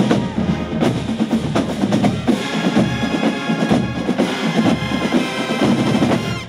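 Marching band playing: a drumline of snare and bass drums under sousaphones and trumpets. Loud and full, it breaks off abruptly near the end.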